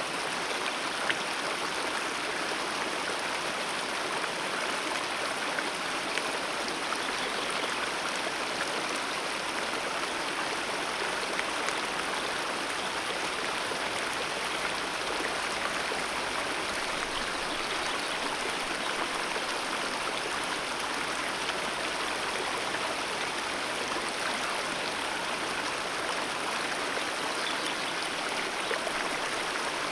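Alpine mountain river flowing over rocks: a steady rushing of water.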